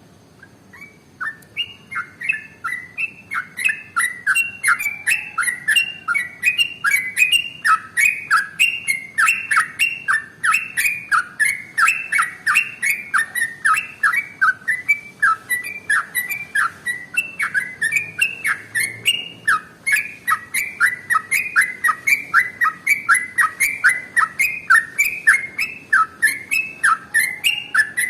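Yellow-vented bulbul (trucukan) singing a long, rapid, unbroken run of quick downward-sweeping notes, about three a second, starting about a second in.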